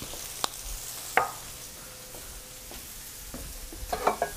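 Flour-dredged chicken pieces searing in a frying pan, a steady sizzle. A couple of sharp clicks early on and a short clatter near the end.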